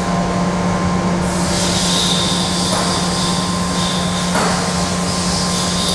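Steady low hum of a running cylindrical (OD) grinder, joined about a second in by a steady high hiss.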